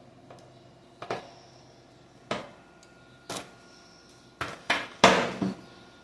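A series of short knocks and clacks, about one a second, then a quicker cluster of louder knocks ending in a longer clatter near the end: hard objects being handled and set down on a table.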